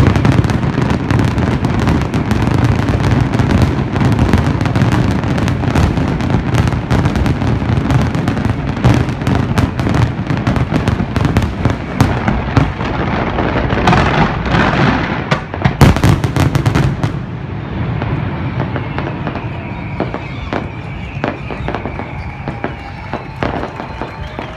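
Finale of a large fireworks display: a dense, continuous barrage of booming shell bursts and crackling over a deep rumble. After about two-thirds of the way the barrage thins out to scattered pops and fading crackle.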